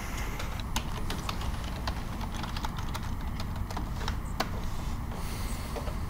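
Computer keyboard being typed on: a run of quick, irregular key clicks over a low steady hum.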